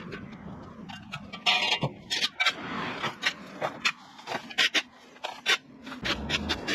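Scraping and rustling with a run of sharp, irregular snaps and clicks, from hand work clearing an overgrown garden.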